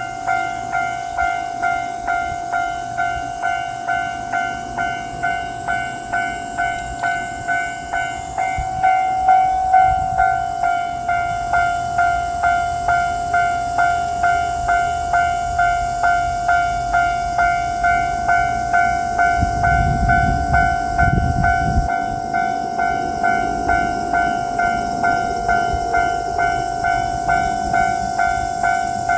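Japanese railroad crossing bell ringing steadily, a clanging 'kan-kan' tone repeating about twice a second. About two-thirds of the way through a brief low rumble joins it as the 185 series diesel railcar passes over the crossing.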